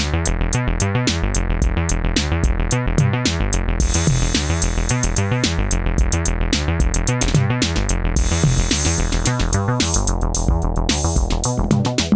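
Synthesizer bass sequence playing a fast run of repeated notes over a drum machine beat. Hi-hats come in about four seconds in, and the top end of the sound darkens near the end as the filter closes down.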